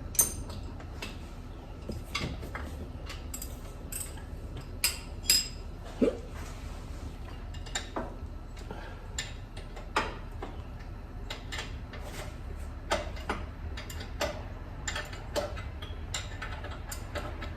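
Hand tools clicking and clinking against metal, spaced out and irregular, with one clink about five seconds in ringing briefly; a steady low hum lies underneath.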